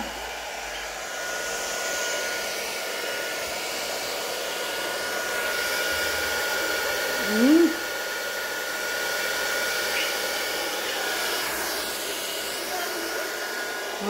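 Revlon hand-held hair dryer blowing steadily, a rush of air with a steady high whine in it. About halfway through, a short rising vocal sound rises above the dryer.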